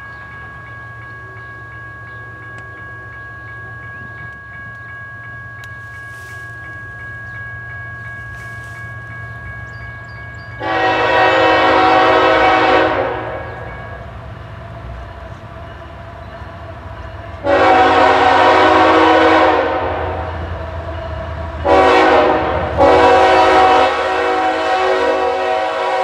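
GE ES44AH diesel locomotive's multi-note air horn sounding the standard grade-crossing pattern: long, long, short, long, with the last blast running on to the end. The locomotive's engine rumble grows underneath as the train approaches.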